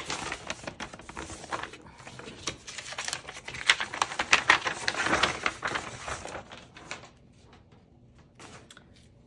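Plastic packaging and card sleeves being handled, a rapid run of crinkling and clicking that stops about seven seconds in.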